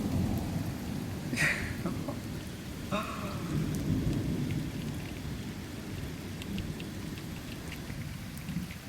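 Thunder rumbling low and slowly dying away, with rain falling and a few sharp ticks.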